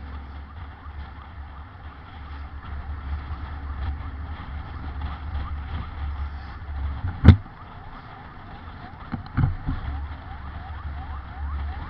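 Ambulance siren yelping in quick rising sweeps a few times a second, faint under a steady low vehicle rumble. A sharp loud knock comes about seven seconds in, and a couple of duller thumps about two seconds later.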